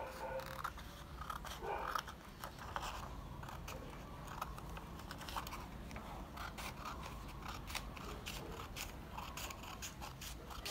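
Small scissors snipping through a folded sheet of origami paper, a run of irregular crisp clicks.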